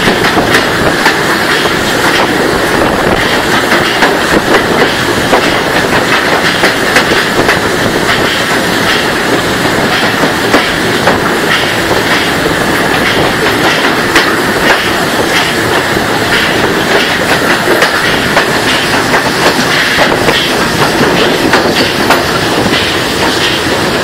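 Train wheels rolling on the rails and clattering over rail joints in a loud, steady run, heard from aboard a moving train.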